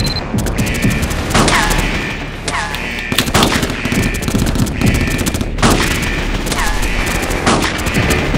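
Repeated bursts of rapid automatic gunfire, many sharp shots with short pauses between the runs.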